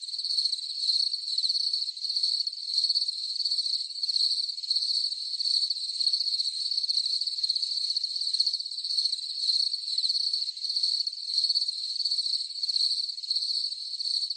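Insects calling in chorus: a steady, high-pitched trill that swells and eases about once a second.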